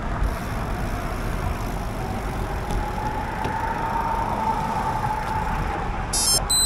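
Steady wind and rolling noise of a bicycle ride, with a faint whine that swells and fades in the middle. Near the end a quick run of high electronic beeps begins, louder than the riding noise.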